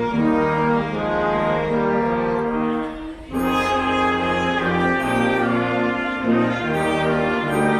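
Symphonic wind band playing sustained full chords, with a brief break about three seconds in before the next phrase begins.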